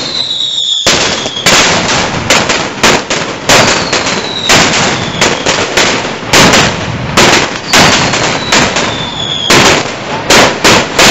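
Firecrackers going off in an irregular string of sharp, loud bangs, roughly one every half second to a second. About three times a high whistle glides slowly down in pitch under the bangs.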